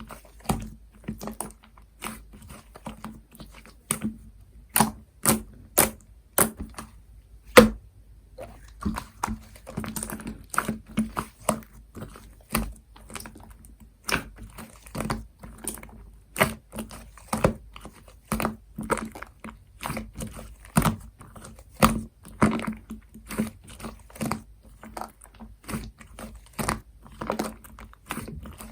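Hands working a soft cotton-candy slime, mixed from several slimes. It gives an irregular run of sharp sticky clicks and pops, about one or two a second, as it is pressed, stretched and folded.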